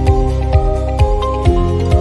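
Background music: calm new-age style track with sustained synth chords and a soft low beat about twice a second.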